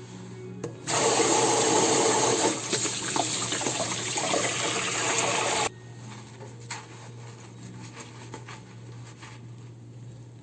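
Kitchen tap running in a steady stream for about five seconds, then shut off suddenly, while hands or eggs are washed under it; small faint handling sounds follow.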